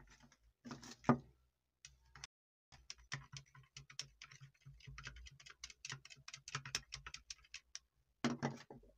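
Rapid, irregular clicking and crackling, several clicks a second, from an electrolyte-soaked cotton pad on a live wire held against a stencilled steel knife blade during electro-etching. A low hum runs under the clicks, with louder clusters about a second in and again near the end.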